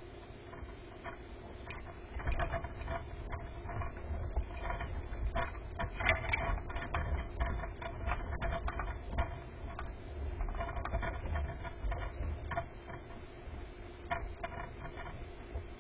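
Irregular clicking and scratching inside a wooden bluebird nest box as an adult eastern bluebird and its nestlings shift on the grass nest, over a steady low rumble. The clicks come thickest for several seconds early on, then thin out.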